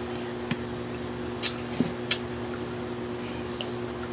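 Eating a braised pork hock: a few short, soft clicks and smacks of chewing, over a steady low hum.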